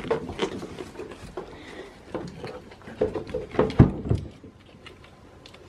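Close clicks, knocks and rustling, with one heavy thump a little before four seconds in.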